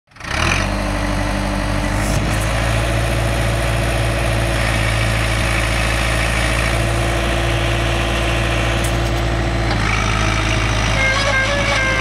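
Four-cylinder diesel engine of a New Holland Ford 555E backhoe loader running steadily at idle. Its note changes about ten seconds in as the machine starts to move.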